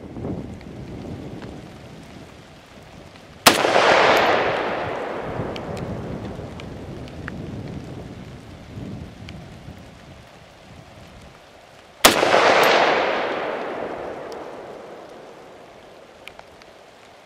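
Two shots from a Norinco M305, an M14-type semi-automatic rifle in .308 Winchester, about eight and a half seconds apart. Each is a sharp crack followed by a long rolling echo that fades over several seconds.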